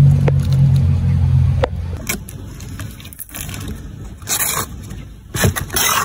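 Plastic shrink wrap being torn and crinkled off a cardboard box and the box opened, in a few short rustling bursts over the last four seconds. A low steady hum runs through the first second and a half and stops.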